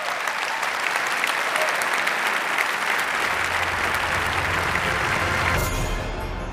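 Large audience applauding, a dense crackle of many hands clapping. About three seconds in, low music enters beneath it, and near the end the applause cuts off suddenly, leaving the music.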